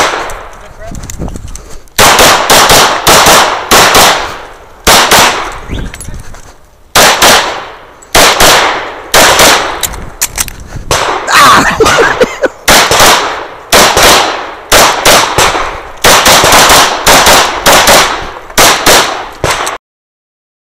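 Rapid pistol fire from a competitor shooting a USPSA stage. The shots come in quick pairs and short strings, broken by brief pauses between shooting positions, each shot with a short echo. The sound cuts off suddenly near the end.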